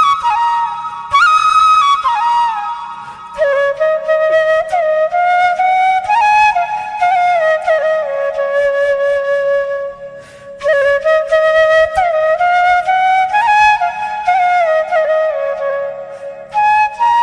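Background music: a flute playing a slow melody with sliding, bending notes.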